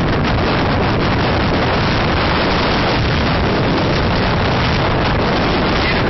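Typhoon-force wind buffeting the microphone: a loud, steady rush of wind noise.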